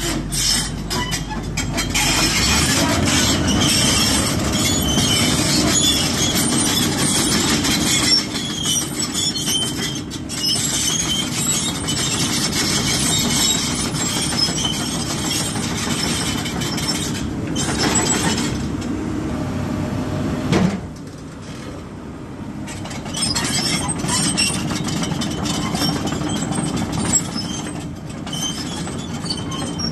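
Hyundai R220LC-9S 20-ton excavator running, its steady engine sound mixed with metallic squeals and clanks. It briefly gets quieter about two-thirds of the way through.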